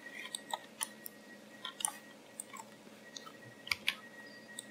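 Computer mouse buttons and scroll wheel clicking: a scatter of small, irregular clicks, with a quick cluster near the end as the wheel is rolled.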